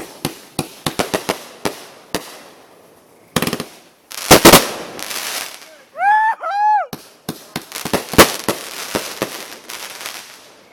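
Sky Bacon consumer firework going off in its grand finale: a rapid string of sharp cracks and bangs, with the biggest blasts about four seconds in and again near eight seconds. About six seconds in come two short squealing tones that rise and fall.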